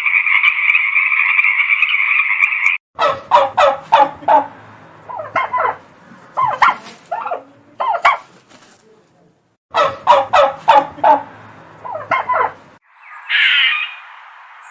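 A series of animal calls. A steady, dense calling sound cuts off suddenly a few seconds in. Two long runs of rapid rattling calls follow, with a short gap between them, then a short harsh call near the end.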